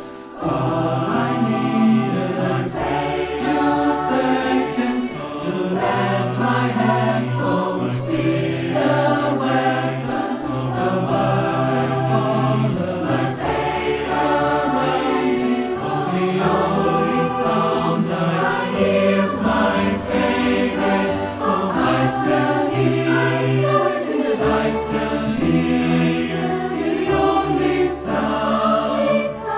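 Large mixed choir singing in several parts with piano accompaniment, the voices recorded separately and mixed together as a virtual choir.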